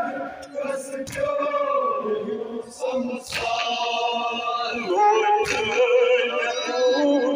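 Men's voices chanting a Kashmiri noha, a Muharram mourning lament, together in long held notes. A sharp strike cuts through about every two seconds.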